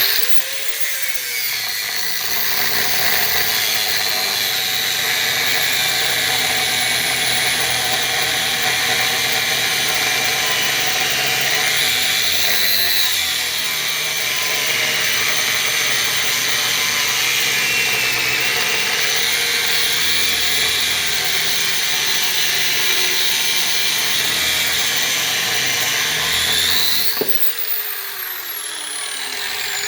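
Grinder with an abrasive cut-off wheel spinning up and cutting through a gearbox shaft with a steady high whine. About three seconds before the end it is switched off and winds down with a falling pitch.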